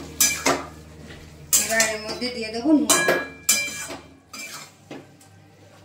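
Metal spatula scraping and knocking against a metal cooking pot while stirring chicken pieces and sliced onions, in a series of short, irregular strokes.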